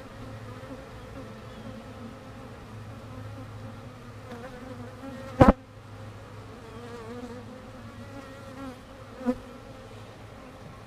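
Honeybees buzzing steadily around an open hive, a low even hum. A sharp knock sounds about halfway through, and a lighter one near the end.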